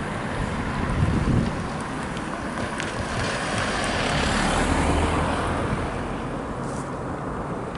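A car crosses the railway level crossing and passes close by. Its tyre and engine noise swells to a peak about halfway through and then fades, over a steady low rumble of wind on the microphone.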